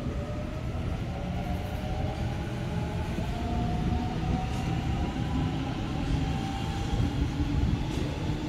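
Double-deck electric passenger train pulling away: the traction motors whine, rising slowly and steadily in pitch as it gathers speed, over a low rumble of wheels on rail.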